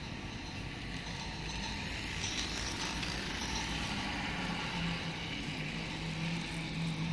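Toy train running past on its plastic track: a rapid clatter of wheels over the rail joints, thickest about two to three and a half seconds in, over the whir of its small electric motor, which settles to a steady low hum as the train moves on.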